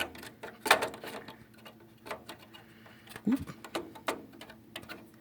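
Irregular sharp clicks and taps of a RAM stick being handled, lined up and pushed into a motherboard's memory slot.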